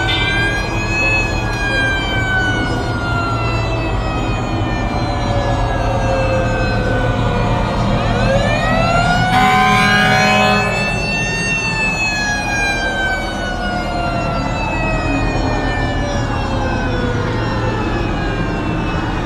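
Fire truck siren wailing, its pitch rising quickly and then falling slowly, the cycle repeating twice over a steady low hum. A short, louder blast cuts in about ten seconds in.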